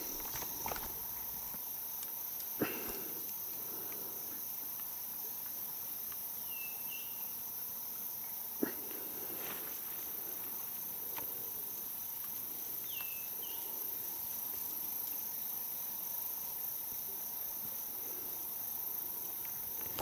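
Steady high-pitched chorus of rainforest insects, with two pairs of short falling chirps about a third and two thirds of the way through and a couple of soft clicks.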